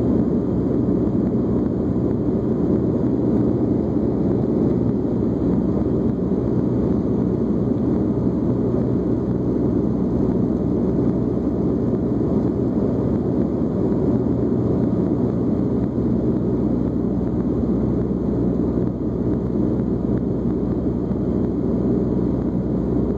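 Turboprop airliner in cruise heard from inside the cabin: a steady low propeller drone over constant rushing noise.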